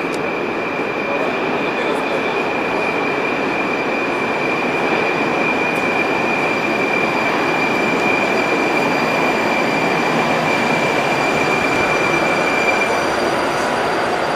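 Metrowagonmash 81-765.4 "Moscow-2019" metro train pulling into a station and slowing to a stop: a steady rumble of wheels and running gear, with a steady high squeal that stops near the end as the train halts.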